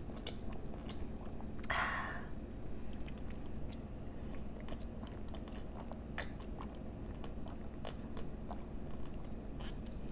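Close-miked drinking of coconut sugarcane juice straight from a plastic cup: swallows and small wet mouth clicks, with one louder breathy sip about two seconds in.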